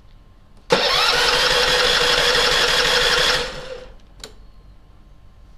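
Small petrol generator's electric starter cranking the engine on choke for about three seconds, rising quickly to a steady whirring pitch, then cutting off and spinning down; the engine does not catch.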